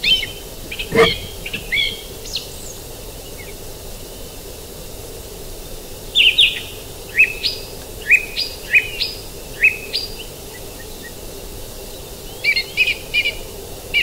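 Small songbird giving short, sharp calls in three bouts, over the steady rush of a forest creek. There is a single low thump about a second in.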